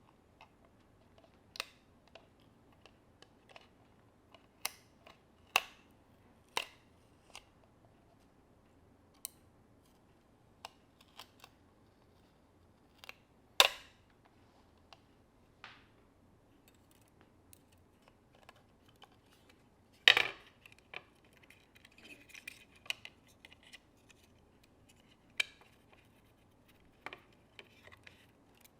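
Irregular small clicks and taps of hand tools and small parts being handled during an iPhone repair, with two louder knocks, about halfway through and about two-thirds through.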